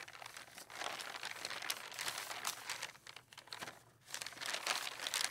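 Paper rustling and crinkling in two stretches of irregular crackle, with a short lull in the middle.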